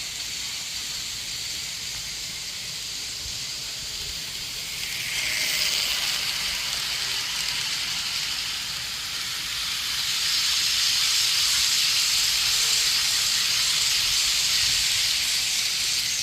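N-gauge model trains running on the layout: a steady high hiss of small motors and wheels on rail, swelling about five seconds in and growing louder again from about ten seconds in.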